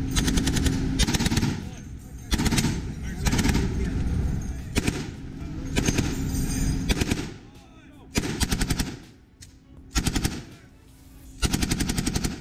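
Machine guns firing bursts of rapid automatic fire with short pauses between them. The bursts are long at first and become shorter, with longer gaps, from about eight seconds in.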